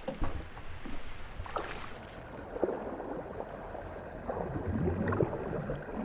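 Water sloshing and splashing around a hand-held dip net being pulled through the water.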